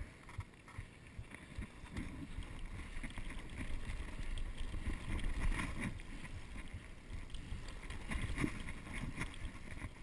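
Mountain bike rolling over a dirt BMX track: rumbling tyre noise on the packed dirt and loose gravel, with scattered crackles and jolts over the bumps and wind on the microphone. It is quiet at first and gets louder from about two seconds in.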